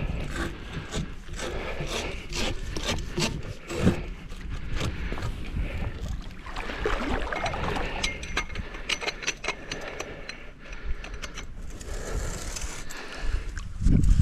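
Dock parts being handled and shifted: irregular scraping and rubbing with many clicks and knocks, one louder knock about four seconds in.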